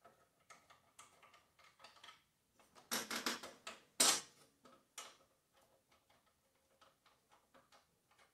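Light clicks and metallic taps of tools and bolts being fitted by hand. The clicks come faint and irregular, with a louder cluster about three seconds in and one sharper click about a second later.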